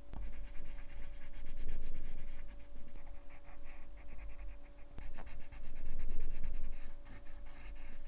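Coloured pencils scratching across paper in quick back-and-forth shading strokes as areas of a drawing are coloured in.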